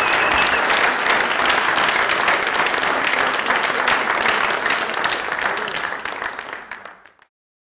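Audience applauding with dense, steady clapping that fades away and stops about seven seconds in.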